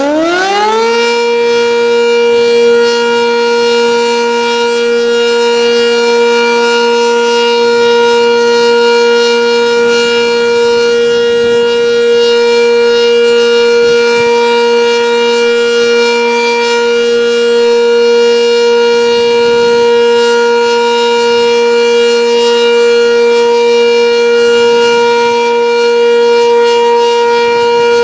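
Sentry 10V outdoor warning siren sounding the steady Alert signal for a test. It finishes winding up to full pitch about a second in, then holds one steady tone.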